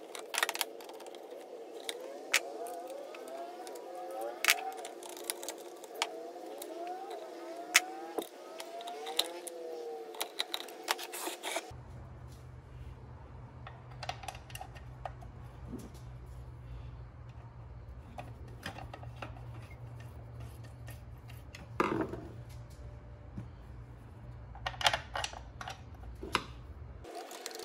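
Irregular small clicks and taps as screws and a screwdriver are worked into the plastic housing of a portable bandsaw, starting the cover screws by hand. A faint wavering tone sits underneath for about the first twelve seconds, then gives way to a steady low hum until near the end.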